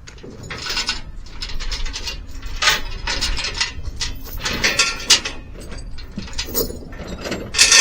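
Steel tie-down chains clanking and rattling in irregular clinks as they are pulled out and handled.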